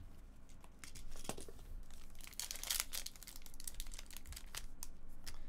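Foil trading-card pack being torn open by hand, its wrapper crinkling and crackling, with a denser run of crackle about two and a half seconds in.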